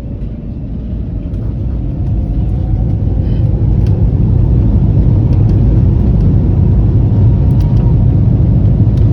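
Airliner engines and cabin rumble heard from inside the passenger cabin, a loud low rumble that builds up steadily over the first few seconds, with a faint tone rising in pitch, then holds at full strength.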